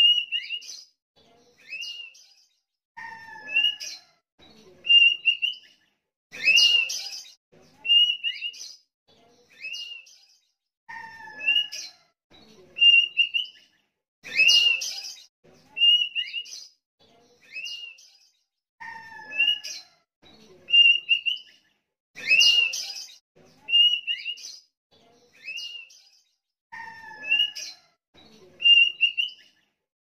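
Sooty-headed bulbul singing: short clear whistled notes, each with a quick hooked pitch, alternating with louder harsh phrases, the same sequence coming round about every eight seconds.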